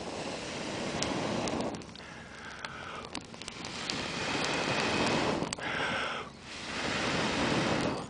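Three long swells of rushing, blowing air noise over a freshly lit kindling fire, each about two seconds long with short dips between.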